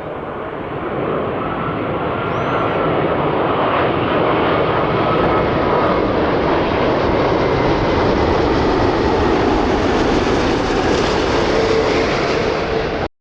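Four-engined Airbus A380 airliner on approach to land: a loud, steady jet roar that swells about a second in, with a faint whine that slowly falls in pitch. The sound cuts off abruptly near the end.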